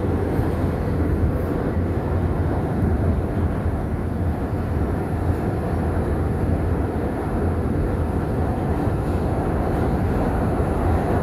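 Bombardier R142 subway car running between stations, heard from inside the car: a steady, continuous low rumble of wheels and traction motors.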